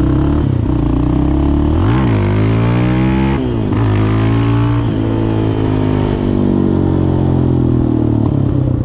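Yamaha Raptor 700 quad's single-cylinder engine under way: the pitch dips and climbs sharply about two seconds in and again at about three and a half seconds as it accelerates through the gears, then holds and slowly falls as it cruises and eases off.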